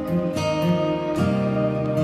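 Background music led by a plucked acoustic guitar, with the notes changing about every second.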